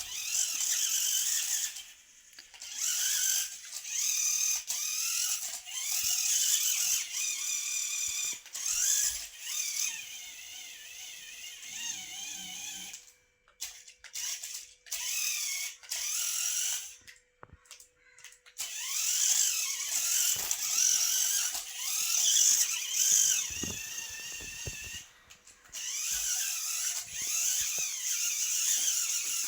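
Small electric motor and gears of a toy climbing car whirring in bursts, the pitch rising and falling as it speeds up and slows, with a few short pauses.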